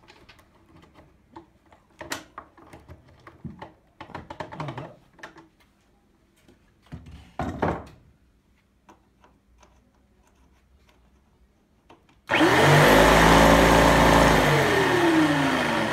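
Light knocks and handling clicks on the plywood table, then, about twelve seconds in, a jigsaw mounted under the workbench is switched on. It runs loudly and steadily for a couple of seconds, then is switched off and winds down, falling in pitch.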